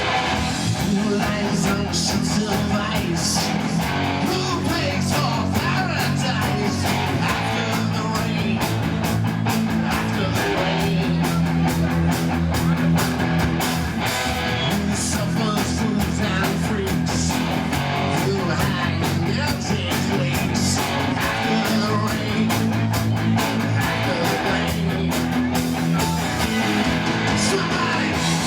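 Rock music led by guitar, playing steadily without a break.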